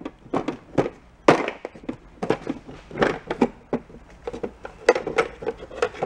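A plastic parts-bin drawer pulled out and small knobs clattering inside it as they are rummaged through by hand: a run of irregular clicks and knocks.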